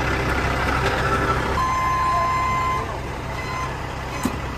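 Semi truck's diesel engine idling with a steady low drone. About a second and a half in, a single beep tone sounds for about a second, and the engine sound drops a little just after. A short click comes near the end.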